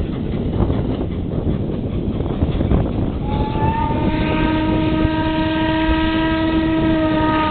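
Steam locomotive whistle blowing one long steady blast, several tones sounding together as a chord, starting about three seconds in and lasting about four seconds. Wind buffets the microphone throughout.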